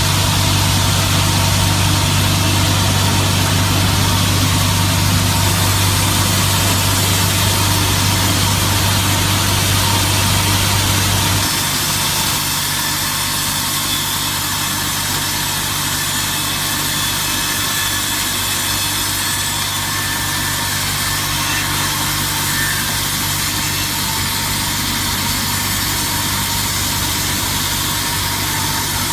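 Automatic-feed circular-saw edging machine running, its paired saw blades trimming the bark edges off a log slab, with a steady machine noise. A deep hum drops out abruptly about eleven seconds in, leaving a slightly quieter, even running sound.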